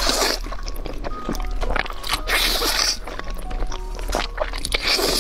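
Instant noodles in red sauce being slurped loudly into the mouth in several long, hissing pulls, over soft background music with short sustained notes.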